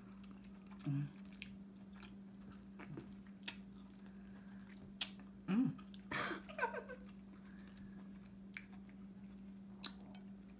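A person chewing king crab meat close to the microphone: wet mouth clicks and smacks scattered through, with a short voiced hum about five and a half to seven seconds in, over a steady low hum.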